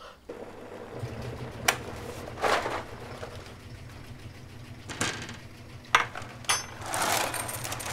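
A steady low mechanical hum starts about a second in, with a few sharp clicks and short rustling, clattering bursts over it.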